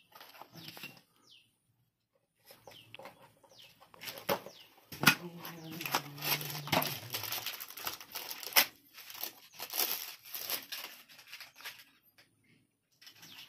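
Cardboard parts box being handled and opened by hand: irregular rustling and scraping of card and paper with several sharp clicks, as a steel oil-seal collar is taken out. A brief low hum sounds for about two seconds near the middle.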